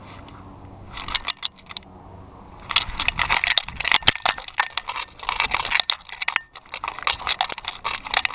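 Metal jingling and clicking right at the camera from a running dog's collar and harness hardware shaking with each stride. It comes in a short spell about a second in, then runs almost without pause from about three seconds on.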